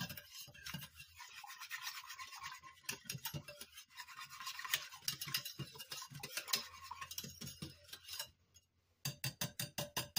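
Wire whisk beating a thickening seasoning-mix gravy in a slow-cooker crock, the wires scraping against the crock in rapid strokes. The whisking stops shortly before the end, and a quick run of about eight taps follows.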